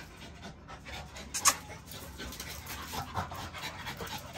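An XL bully puppy and a French bulldog panting as they play, with scattered faint scuffs and one sharp click about a second and a half in.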